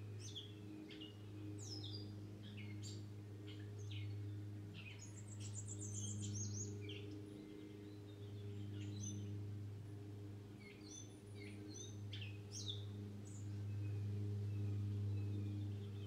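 Several small songbirds chirping and twittering in many short, quick notes, some falling in pitch, over a steady low machine hum that swells and fades.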